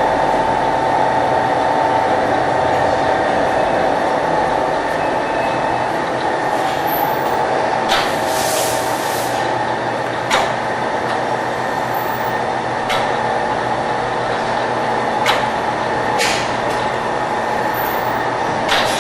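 Shun-Yi VLW 100R programmable tray-type vial washing machine running with a steady mechanical hum. About eight seconds in comes a burst of hiss lasting over a second, and sharp clicks sound several times.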